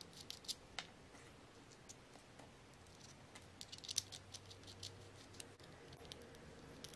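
Faint, scattered small clicks and taps of watchmaker's tools against a metal watch case, in a quick cluster just after the start and another around the middle.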